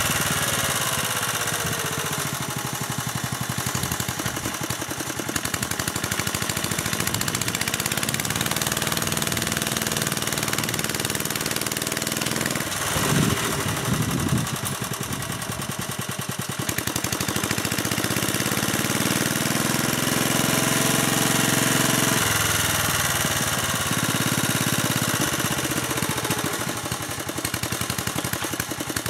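1957 Staub PP3B walk-behind tractor with a rotary tiller running as it churns into a mound of soil. Its engine note rises and falls as the load changes, with a louder spell about halfway through.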